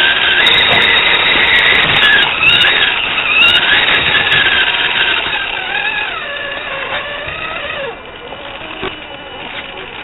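Motor and gear whine of a scale RC crawler truck, picked up by its onboard microphone, its pitch rising and falling with the throttle. It gets quieter about eight seconds in.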